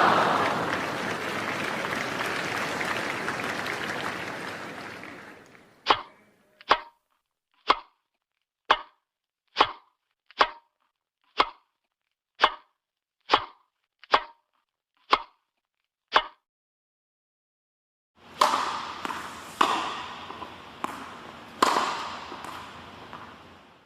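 About a dozen sharp tennis ball impacts, roughly one a second, between two stretches of dense noise that fade away, the second broken by a few sudden jolts.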